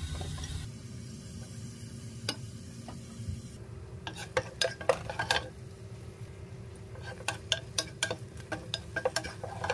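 Onion and garlic sizzling in hot oil in a pan, with a utensil scraping and clicking against the pan as they are stirred; the clicks come thick and fast from about a third of the way in.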